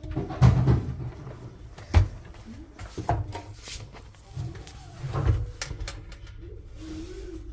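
Irregular knocks and clatter, with a sharp bang about two seconds in: a dishwasher's panels or door being handled during a repair.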